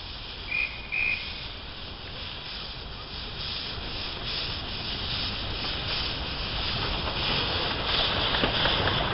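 Miniature steam locomotive giving two short high whistle toots, then a hissing rush of steam and running gear that grows steadily louder as it draws near and passes.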